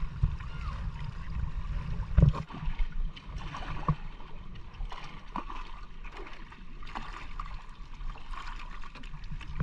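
Wooden paddles stroking and splashing in the sea beside a small outrigger canoe, with water trickling and gurgling around the hull and a few sharper strokes standing out. A low rumble of wind on the microphone runs underneath.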